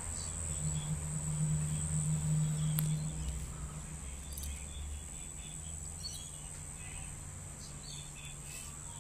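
Distant low rumble of a Gulfstream G-IV's twin Rolls-Royce Tay turbofans flying high overhead, fading after the first few seconds. A steady high-pitched whine and a few faint chirps run over it.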